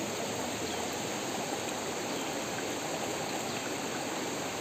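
Flowing water in a stream, a steady, even rushing.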